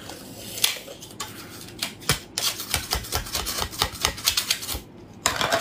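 Shell of a large mussel clicking and scraping as it is handled and its two halves worked apart, in scattered clicks that turn into a fast run of crackling clicks in the middle and a brief louder rustle near the end.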